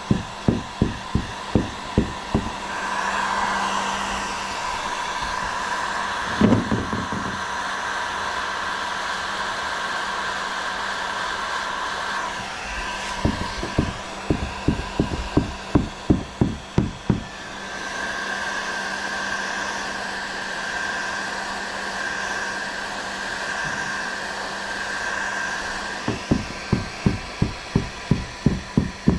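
Heat gun blowing steadily with a whine, heating plastic for a kayak hull patch; it runs in two stretches of about ten seconds, with a thump in the first. Before, between and after these stretches comes a regular knocking, about three to four knocks a second.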